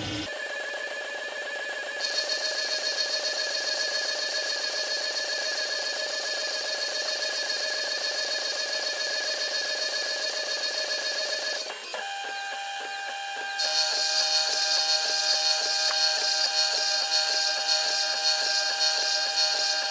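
CNC-converted PM-25MV mini milling machine cutting a roughing pass: a steady, slightly wavering whine from the spindle and stepper motors. The tones shift about 12 seconds in, and a higher whine comes in about 2 seconds in and louder again about 14 seconds in.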